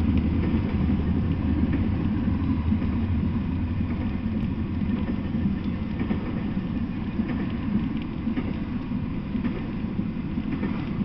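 Intermodal freight train rolling past: a steady low rumble of steel wheels on the rails with scattered light clicks and clacks, easing slightly toward the end.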